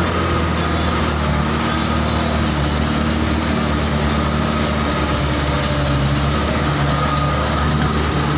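Truck's diesel engine running steadily, heard from inside the cab, with a thin steady whine above the engine note.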